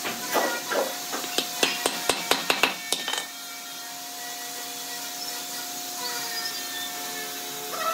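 Small wooden mallet tapping a wooden dowel peg into a hole drilled in a log: about a dozen sharp wooden knocks over the first three seconds, speeding up to about five a second. After that only a steady background hum remains.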